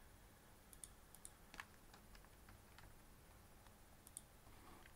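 Faint scattered clicks of a computer mouse, some coming in quick pairs like double-clicks, over a quiet room.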